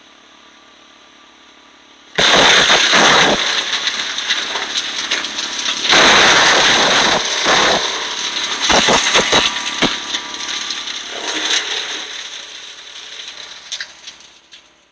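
Wood chipper chewing up branches: a steady engine running, then about two seconds in a sudden loud crackling and grinding as wood is fed to the knives. It comes in several surges and tapers off near the end as the branches are used up.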